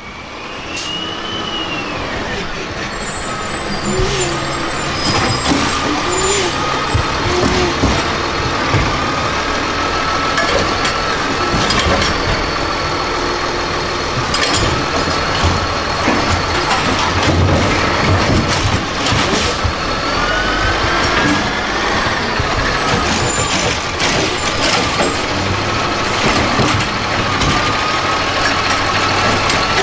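Automated side-loader garbage truck running at the curb while its hydraulic arm lifts and dumps a trash cart: a wavering hydraulic whine that shifts in pitch as the arm moves, over the engine, with a series of sharp clanks from the cart and arm hitting the hopper.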